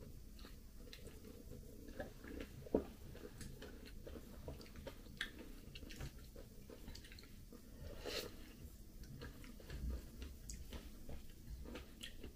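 Faint wet chewing and biting of a person eating a soft, ripe persimmon, with small mouth clicks and a couple of louder bites.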